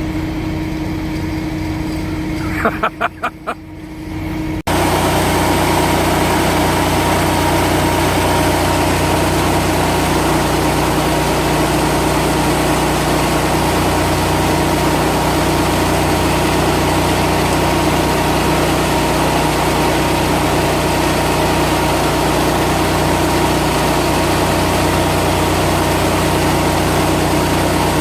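Tractor engine running steadily. About four seconds in, a few sharp knocks are followed by an abrupt switch to a louder, steady engine drone.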